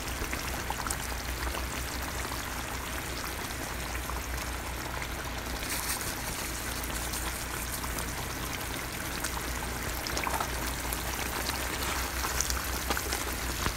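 Green mango pickle sizzling and bubbling steadily in hot oil and vinegar in a frying pan.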